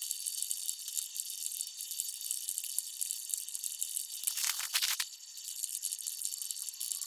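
Rapid, dense clicking and rattling of a laptop keyboard being typed on, heard thin and high with no low end, with a louder, fuller burst of clatter about four and a half seconds in.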